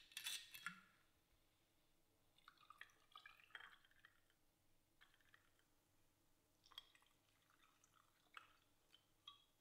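Faint, scattered drips and light clinks of whiskey and ice in a glass tumbler as a drink is poured over ice.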